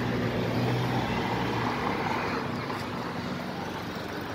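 A motor vehicle's engine running with a steady hum, loudest in the first two seconds and then fading.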